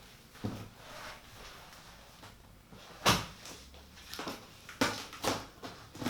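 Unboxing of a PC case and its packaging: a string of separate knocks and scrapes from the case and box being handled, the loudest about three seconds in.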